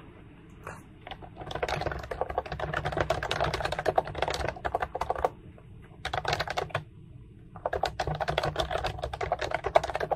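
Fast typing on a computer keyboard with round, typewriter-style keycaps: rapid key clicks in three runs, the first starting about a second and a half in, with short breaks near five and seven seconds.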